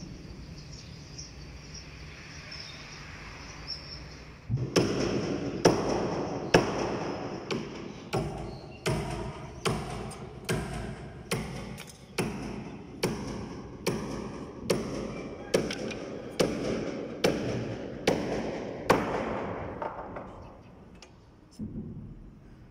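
Steady hammer blows on the timber of a wooden boat hull, about two a second. They start about four seconds in and die away a couple of seconds before the end.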